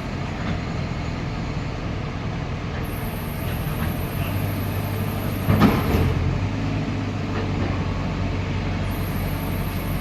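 Heavy diesel machinery engine running steadily, working harder from about four seconds in, with one loud clunk a little past halfway.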